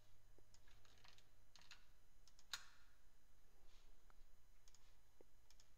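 Faint, scattered clicks of a computer mouse and keyboard, irregular, with one sharper click about halfway through.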